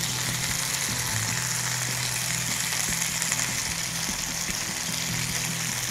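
Chicken sizzling on a hot grill pan, a steady even hiss, with a low steady hum underneath.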